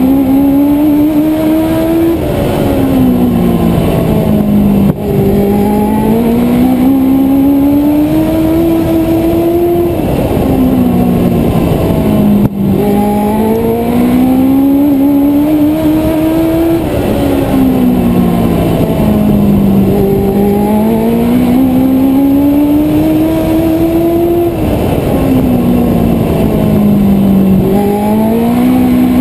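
Race car engine under load on a track, climbing in pitch as it accelerates down each straight and falling away as the driver lifts for the turns, the rise and fall repeating about every seven seconds. A couple of brief knocks cut through it, about five and twelve seconds in.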